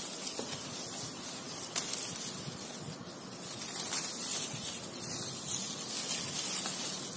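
Steady high hiss of outdoor garden ambience, with a few faint clicks and light rustles around a guava tree's leaves and branches.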